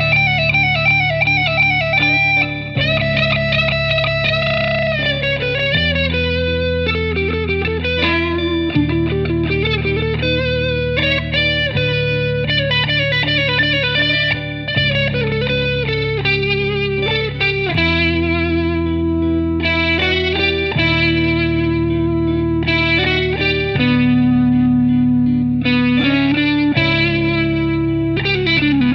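Drumless guitar instrumental in a minor Dorian mode, the guitar run through effects: a lead melody with bends and slides over sustained low chords that change about every three seconds.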